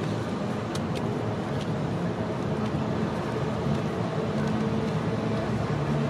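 Steady rumble of road traffic, with a faint engine hum running under it. A few faint crackles from the fading firework stars come in the first two seconds.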